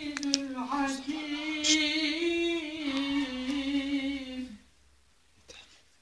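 A single voice chants Arabic religious recitation in a long, ornamented line of held notes, then stops about four and a half seconds in. What is left is faint room quiet with one small click.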